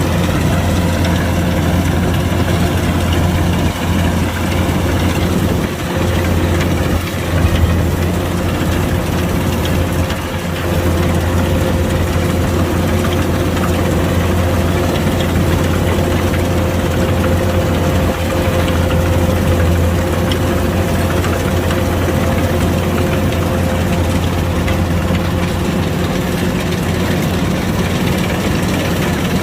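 Kubota DC105X combine harvester running steadily, its diesel engine holding an even, low drone.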